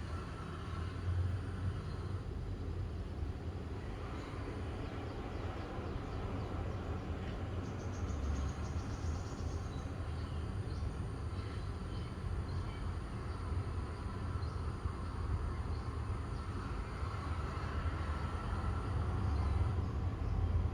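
Outdoor ambience: a steady low rumble with faint high chirps over it, and a brief fast trill about eight seconds in.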